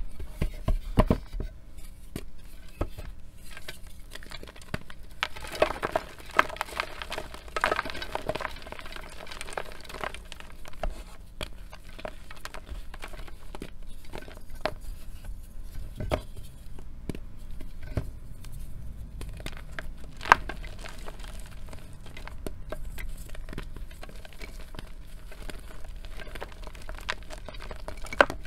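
Reformed gym chalk being broken apart and squeezed by hand: dry crunching, crumbling and crackling of soft powdery chalk, with scattered sharp snaps. There is a denser stretch of crunching several seconds in and one loud snap about twenty seconds in.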